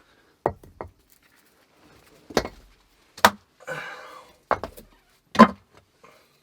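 Rocks knocking and clunking as they are set down and shifted into place: about six sharp knocks, with a short scrape in the middle.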